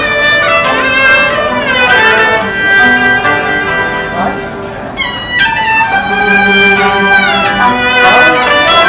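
Chinese traditional instrumental ensemble playing a melody, with bowed erhu lines sliding between notes over dizi flute, plucked zhongruan and hammered yangqin.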